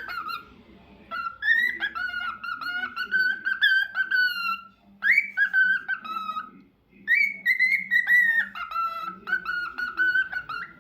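A lutino cockatiel singing a warbling whistled tune in three phrases, with short pauses between them.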